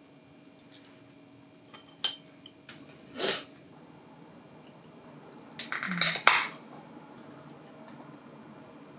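Chopsticks and tableware clinking and scraping on plates during a meal: a few light clicks, a short scrape a little after three seconds, and a loud cluster of sharp clinks about six seconds in.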